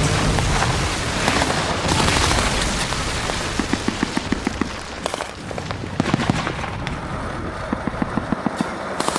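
A loud rushing noise, then runs of rapid, sharp gunshot cracks from about three and a half seconds in: small-arms and machine-gun fire.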